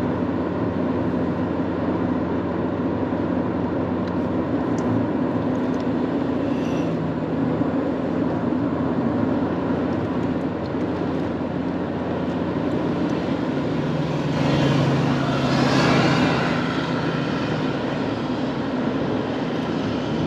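Mercedes-Benz W124 heard from inside the cabin while driving: a steady engine hum over tyre and road noise. A louder rush swells and fades about three-quarters of the way through.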